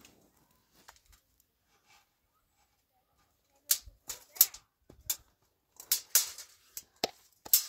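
Faint for the first few seconds, then a run of sharp, irregular clicks and knocks, about a dozen in the last four seconds, some coming in quick clusters.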